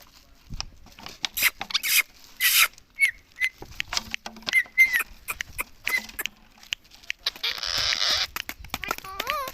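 Indian ringneck parakeet making a run of quick clicks and short chirps, with a hiss-like burst lasting about a second near the end, followed by a short gliding call.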